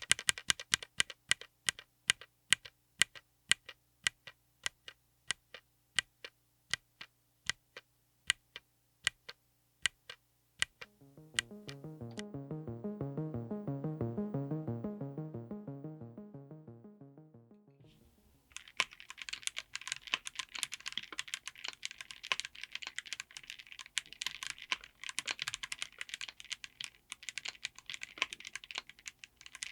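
Gateron Magnetic Jade Ultra linear switches on a mechanical keyboard, pressed one key at a time, about two or three sharp clicks a second. A short musical interlude swells and fades midway. After it the same switches are typed on fast and without pause.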